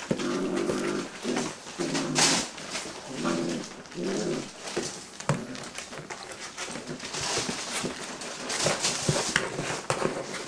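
Six-week-old Greater Swiss Mountain Dog puppies play-fighting, with a run of short low growls in the first half, then scuffling and small clicks as they wrestle.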